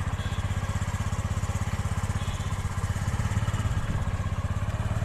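Motor scooter's small engine running steadily under the rider, with a fast, even low pulsing.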